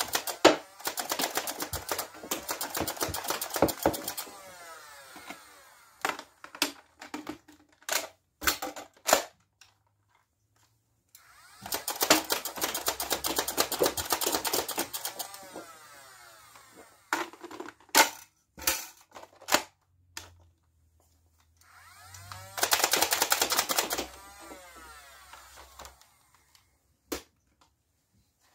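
Nerf Rayven flywheel blaster firing: its motors whine and darts go off in three fast volleys of sharp clicks, with the motor whine falling away after each volley. Single sharp clicks and knocks come in between.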